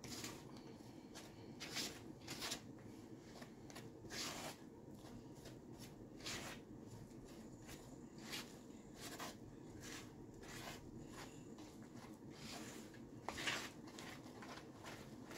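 Spatula stirring thick, chunky muffin batter in a plastic mixing bowl: faint, irregular scraping strokes.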